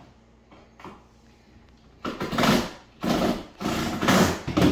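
Power drill run in several short bursts in the second half, working at the screws that hold the countertop, which keep stripping.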